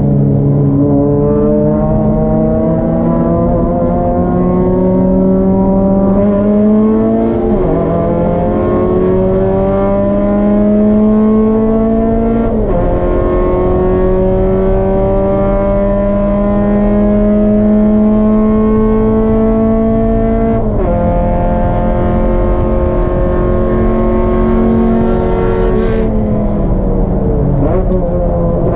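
Race car engine pulling under load, its pitch climbing slowly and then dropping sharply four times, about 8, 13, 21 and 28 seconds in, as at gear changes.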